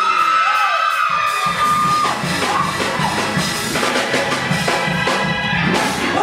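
Church band music, with a long held high note for the first two seconds, then drums coming in with a steady fast beat. A congregation whoops and shouts over it.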